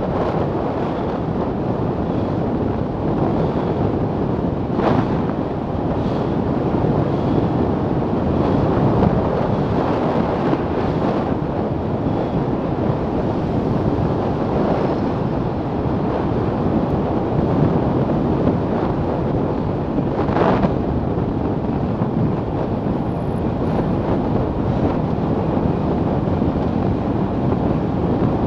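Steady wind rushing over the microphone of a camera on the nose of a Milan Mk4 velomobile moving at about 50 km/h. A couple of brief knocks come through, about 5 and 20 seconds in.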